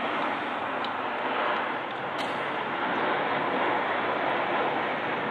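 Steady rushing noise of an Airbus A330-303 airliner's twin General Electric CF6-80E1 turbofans as it flies overhead on its landing approach, gear down.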